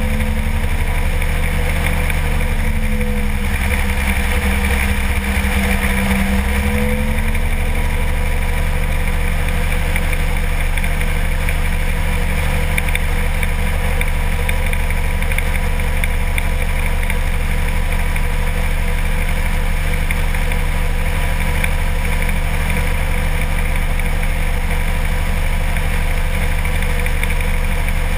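Kolb ultralight aircraft's engine droning steadily in flight, heard from on board. Its pitch shifts briefly a few seconds in, then settles.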